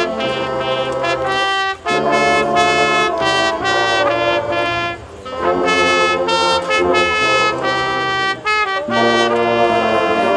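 High school marching band's brass section playing loud sustained chords, in phrases broken by brief pauses.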